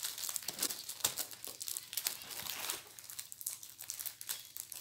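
Packaging crinkling and rustling in quick, irregular crackles as a taped parcel is unwrapped by hand.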